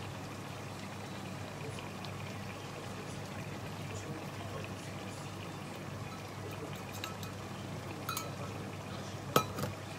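Tofu sauce simmering in a frying pan as cornstarch slurry is poured and scraped in from a glass bowl with a spoon. A few light clinks of spoon on bowl, with one sharp clink near the end.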